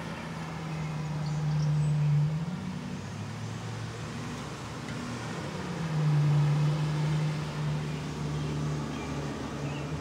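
A low, steady engine-like hum that swells louder about two seconds in and again around six seconds.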